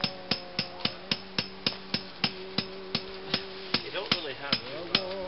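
Hand hammer striking steadily, about three blows a second and slowing slightly, over a slow held melody.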